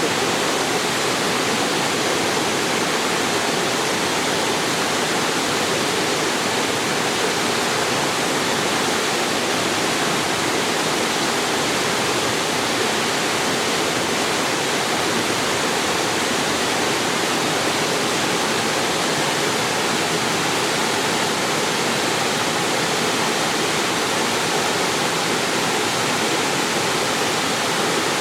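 Waterfall pouring steadily into a mountain stream, a constant full rush of falling water.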